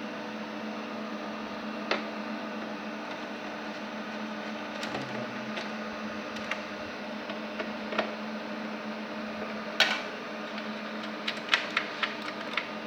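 Scattered sharp clicks and light knocks of computer parts being handled, with a quick run of clicks near the end, over a steady electrical hum.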